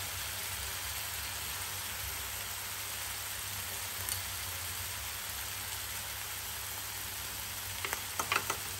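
Masala paste sizzling steadily in oil in a nonstick kadhai over a low flame, fried until the oil has separated. A light tick about four seconds in and a few short clinks of a spoon against small glass spice bowls near the end.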